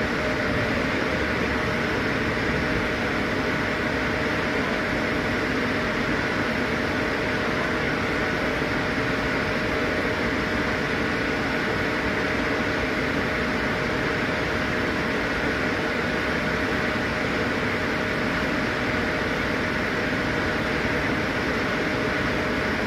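Steady mechanical hum and hiss with a constant mid-pitched tone running through it.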